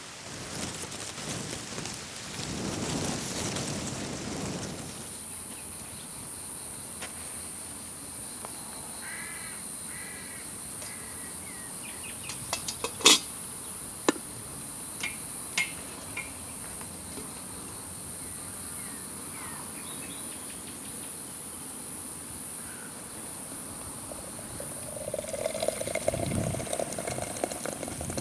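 Outdoor countryside ambience: a steady high insect drone, a few short bird calls about a third of the way in, and a couple of sharp clicks a little before halfway.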